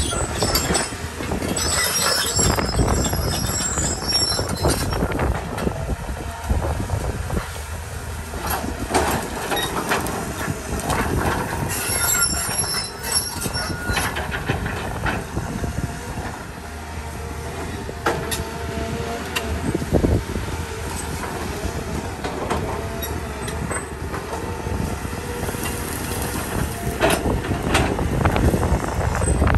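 CAT 320 hydraulic excavator's diesel engine running under load as its bucket rakes through brush, with branches cracking and snapping and spells of high metallic screeching.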